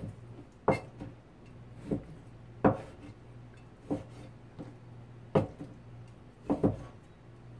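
Chinese cleaver chopping boneless chicken breast on a plastic cutting board: single knocks at an uneven pace of about one a second, with two in quick succession near the end, over a steady low hum.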